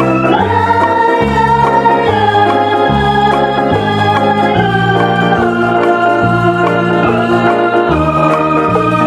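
Background music of held electronic-organ chords over a bass line that steps to a new note every half second to a second.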